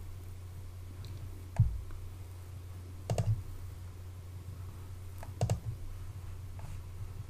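A handful of separate computer mouse clicks, some in quick pairs, over a steady low electrical hum.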